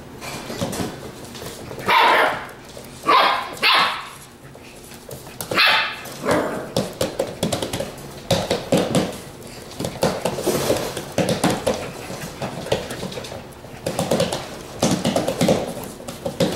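Border collie puppies barking and yipping in play: a few sharp, loud barks in the first six seconds, then a run of shorter, softer yips.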